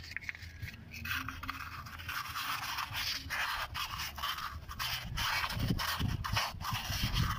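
Sandpaper rubbed by hand round the inside of a drum-brake wheel cylinder bore: a steady scratchy rasping that starts about a second in, with a few dull knocks near the end. The sanding takes out the rust that scores the rubber cups and makes the cylinder leak.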